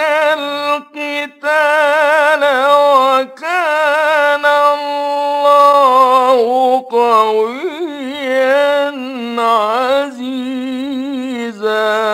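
A male Quran reciter's voice in the melodic mujawwad style, drawing out long notes with quick wavering ornamental turns, broken by a few short breaths.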